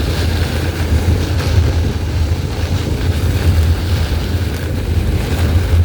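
Steady low rumble of a vehicle driving in high wind and heavy rain, heard from inside the cab, with wind noise over it.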